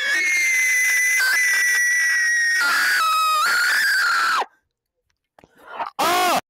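A person's long, very high-pitched scream, held for about four seconds with the pitch sagging slowly and dropping lower around three seconds in, then cut off abruptly. After a short silence, rapid repeated rising-and-falling vocal whoops, like a mock alarm, start near the end.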